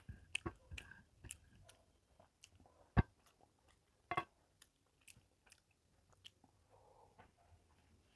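Close-up mouth sounds of someone eating rice and fish curry: soft chewing with wet lip smacks and clicks, and one sharp knock about three seconds in.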